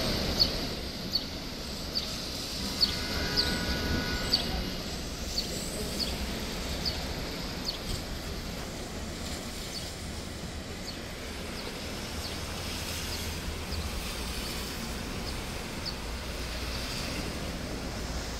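Heavy rain in a city street, a steady wash of noise over low traffic rumble. Through the first half, short high ticks or chirps repeat about once a second, then thin out.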